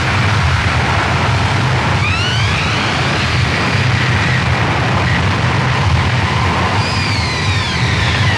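Harsh noise music: a loud, unbroken wall of distorted static over a low rumble, with whining tones that glide upward about two seconds in and slide downward near the end.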